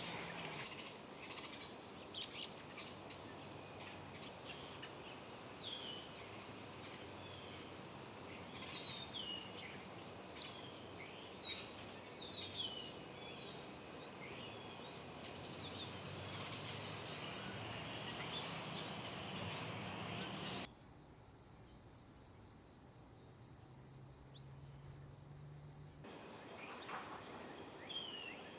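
Garden ambience: a steady high trilling of insects with scattered short bird chirps over it. About three-quarters through, the sound drops for several seconds to a quieter stretch with almost no chirps, then the insects and chirps return.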